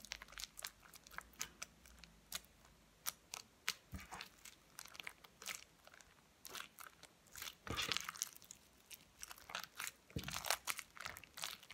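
Sticky shaving-foam slime being squeezed, kneaded and stretched by hand, giving a faint run of irregular wet clicks and crackles.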